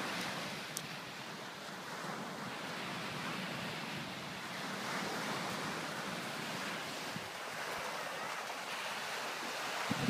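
Sea surf breaking and washing up a sandy beach: a steady rushing hiss that swells and eases, with wind mixed in.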